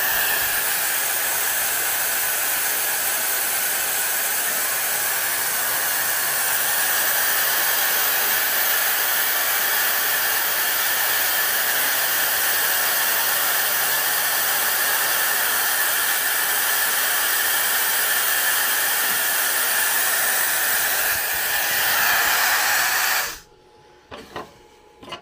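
Laser air assist blowing: a steady hiss of air at the diode laser's cutting head during a cut, which cuts off abruptly about 23 seconds in.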